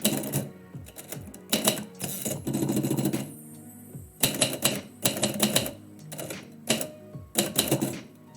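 Typewriter keys striking in quick bursts of clicks with short pauses between, and a longer sliding sound about two and a half seconds in, over soft background music.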